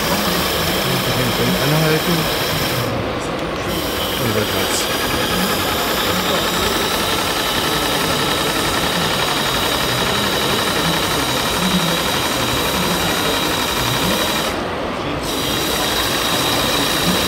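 A live-steam model boat engine running on its stand with a steady hiss. The top of the hiss drops out briefly twice.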